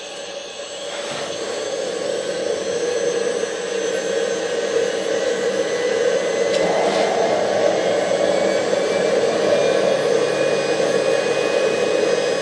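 Homemade jet engine spooling up on a test run: a rushing roar that grows steadily louder, with a faint whine slowly rising in pitch.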